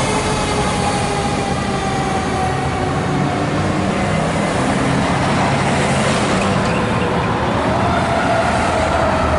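Fire truck siren sliding slowly down in pitch over the first few seconds, then winding back up near the end, over the steady low drone of the truck's Detroit Diesel DD13 engine as the 2015 Pierce Arrow XT tower ladder pulls away.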